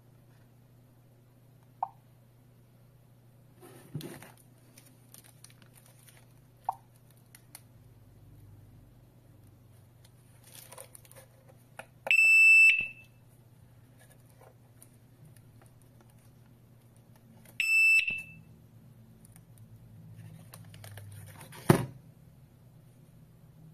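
Two loud, high electronic beeps, each well under a second and about six seconds apart, from a wireless home security alarm kit as its siren is switched on for setup. Short faint touch-panel blips sound early on, and there is a sharp click near the end.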